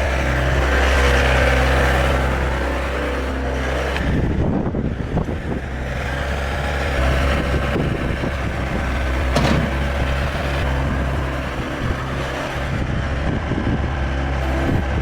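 Ramtec RS850 skid steer loader's Yanmar diesel engine running steadily. Irregular rattling and knocking from the working machine comes in about four seconds in.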